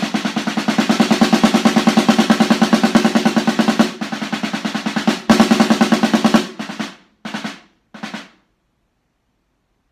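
Snare drum played with wooden sticks: a dense run of rapid strokes that drops softer about four seconds in, then a sudden loud accent and a loud passage, ending in three short separate figures that fade. These are the closing bars of a snare drum etude, and the drum stops a little past eight seconds in.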